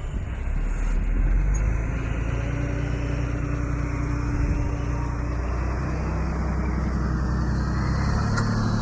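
Diesel engine of heavy earthmoving machinery running steadily under load, its low note shifting slightly about eight seconds in.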